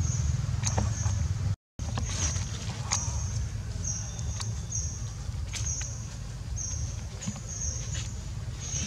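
Macaques picking at and eating a split jackfruit: scattered small clicks and rustles over a steady low rumble. A short high chirp repeats in the background, one to two times a second, and the sound drops out briefly about a second and a half in.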